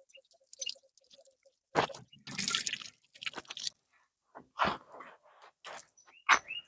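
Water from a tank tap splashing and dripping into a small plastic pressure-washer shampoo bottle as it is filled, in short uneven splashes.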